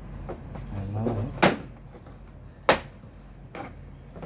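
Plastic body-panel clips on a Honda PCX 125 scooter's cowl snapping loose as they are pried with a plastic trim tool: three sharp clicks, the loudest about a second and a half in and a fainter one near the end.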